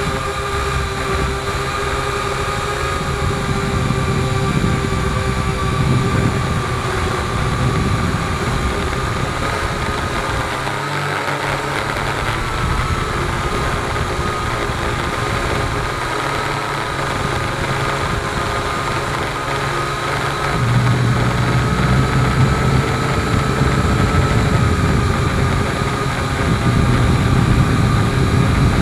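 Drone's motors and propellers whining steadily, heard from the camera on board, with a slightly wavering pitch over a rough low rumble of buffeting air. The rumble grows louder about two-thirds of the way through.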